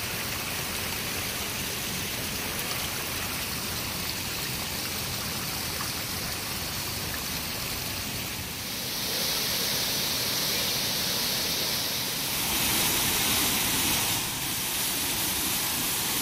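Waterfall's rushing water, a steady even noise with no distinct events. It gets louder in steps about nine seconds in and again around twelve seconds in, then eases slightly near the end.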